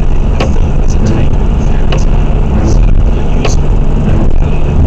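Car driving along a road, heard from inside the cabin: a loud, steady engine and tyre rumble, with a sharp click roughly every second and a half.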